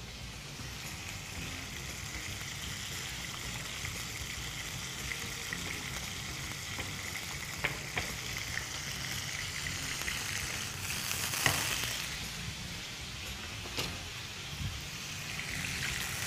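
Diced boneless chicken frying in a little oil in a pan: a steady sizzle. It swells louder for a moment about two-thirds of the way through, and a few sharp clicks sound over it.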